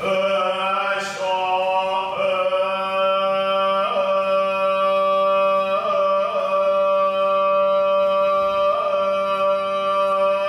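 Buddhist shōmyō chant: a single man's voice holding one long steady note, its vowel colour shifting a few times.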